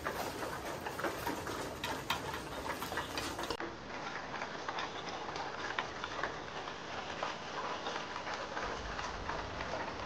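Pigeons pecking at grain feed: a dense, irregular patter of small beak clicks and taps.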